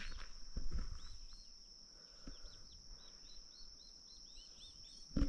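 Wild turkey poults peeping in the grass: a run of short, high peeps, a few each second. A steady high insect drone runs beneath, and a couple of low thumps come in the first second.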